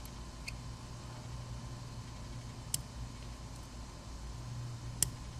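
Small metal lock parts clicking as sliders are taken out of a gutted high-security lock cylinder: a faint click about half a second in, then two sharp clicks near 3 and 5 seconds, over a steady low hum.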